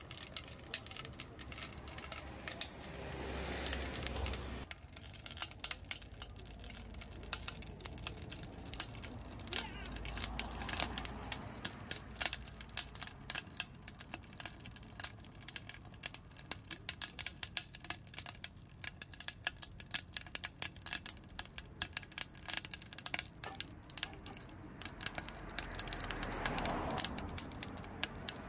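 Split kindling burning in a homemade double-wall, Solo Stove-style wood stove, crackling and popping in quick irregular snaps as the fire takes hold. Road traffic noise swells and fades three times underneath.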